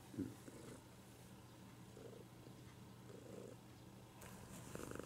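Tabby cat purring softly while being stroked, in slow swells that grow louder near the end. A brief soft bump comes just after the start.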